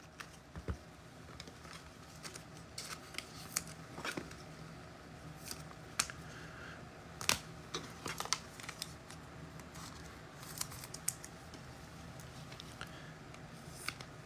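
Scattered light clicks and ticks from trading cards and card packaging being handled, over a faint steady room hum.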